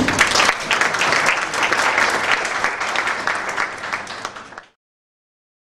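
Audience applauding. The clapping thins out and then cuts off abruptly near the end.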